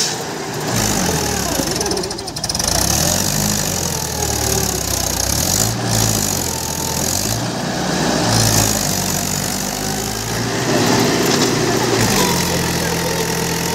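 Mahindra 575 DI tractor's four-cylinder diesel engine working under load as it hauls a loaded trolley through deep mud, its pitch rising and falling again and again, then holding higher and steadier near the end.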